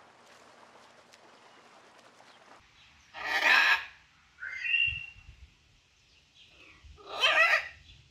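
Green-winged macaw squawking: two loud, harsh squawks a little under four seconds apart, with a shorter, higher call between them. Before them, only faint outdoor background noise.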